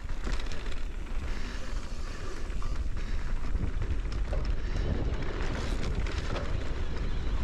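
Wind buffeting the microphone over the rolling noise of an Ibis Oso electric mountain bike's knobby tyres on a dirt and grass trail at speed, with short rattles and clicks from bumps. The noise is steady throughout.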